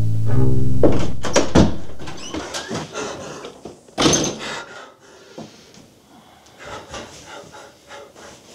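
Low bowed-string score music that stops about a second in, then knocks and thuds of a scuffle, with a loud hit about four seconds in, followed by the crinkling of plastic sheeting.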